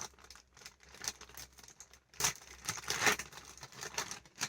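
Plastic toy packaging crinkling and rustling as it is handled and opened, in irregular crackles that grow louder about two seconds in.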